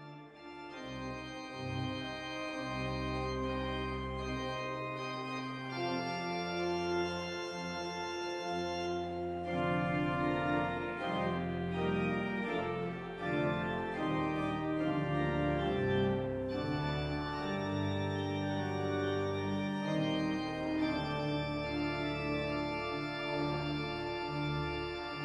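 Organ music: slow, sustained chords over held bass notes, fading in over the first couple of seconds.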